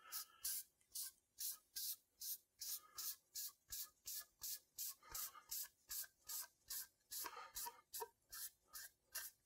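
Dye-soaked cloth rag rubbed back and forth over a quilted maple guitar top in quick, even strokes, about two or three soft swishes a second.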